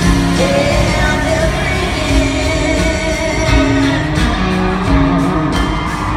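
Live country-rock song: a woman singing over a band with electric guitar, bass and drums, with one long note held through the first half.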